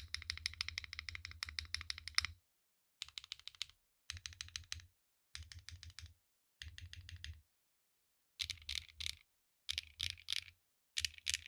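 Mode Tempo mechanical keyboard with HMX Lotus switches on a POM plate being typed on: a fast, continuous run of keystrokes for about two seconds, then short bursts of keystrokes with pauses between them. Toward the end the strokes come slower and louder, three or four at a time.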